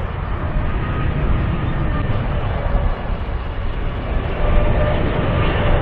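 Boeing 777-300ER's GE90-115B turbofan engines running on landing approach: a steady low rumble with faint whining tones above it, growing a little louder in the second half as the airliner comes closer.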